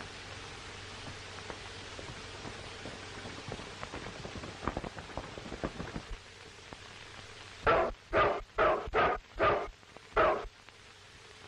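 A dog barks six times in quick succession near the end, over the steady hiss of an old film soundtrack.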